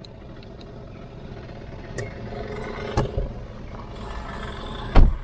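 Hyundai Eon with a flat battery being push-started: rolling noise that builds slowly, with a knock about three seconds in and a louder thump near the end.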